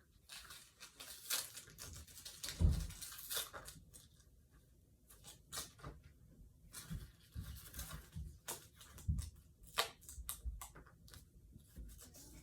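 Packaging being torn open and handled: irregular rustling, tearing and small plastic clicks, with a couple of dull thumps on the table.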